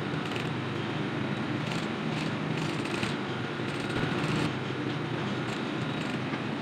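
Sewing machine running steadily as it stitches cloth, with a few brief rustles of the fabric being guided under the needle.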